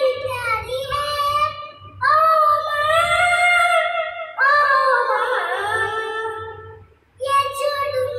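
A small boy singing a tune in long held notes, one phrase sliding down in pitch about halfway through, with a brief pause near the end before the next phrase.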